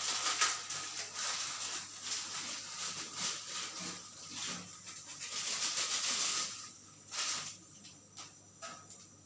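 Pot of instant noodles bubbling on the stove, a crackly hiss that drops away after about six seconds, followed by a few separate clicks of utensils.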